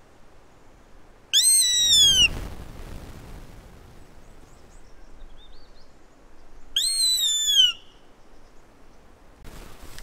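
A deer call used to call sambar deer, blown twice about five seconds apart. Each is a high, squealing bleat lasting about a second and falling in pitch.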